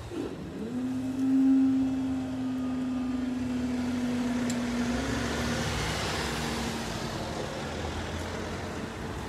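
Level-crossing barrier's hydraulic power-pack motor raising the booms: it spins up with a short rising whine, runs as one steady hum, then drops slightly in pitch and weakens about five seconds in. Road traffic noise runs underneath.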